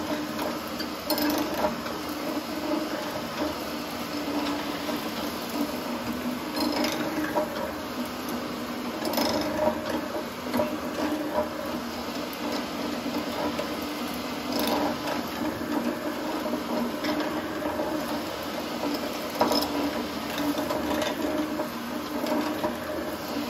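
Felder FD250 mortiser running steadily while its cutter is plunged and slid along the workpiece to cut a mortise, with a handful of sharp knocks from the levers and cutter along the way.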